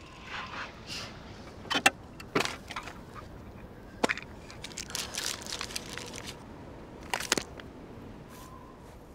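Handling sounds inside a car: sharp clicks and rattles as the glove box is worked and small objects are handled, with rustling in between.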